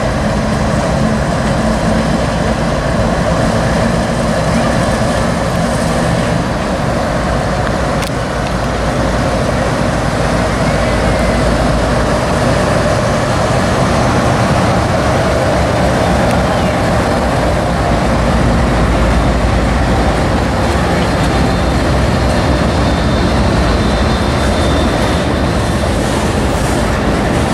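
CSX freight train's diesel-electric locomotives running steadily as they pass close by at low speed on a switching move, then freight cars rolling past.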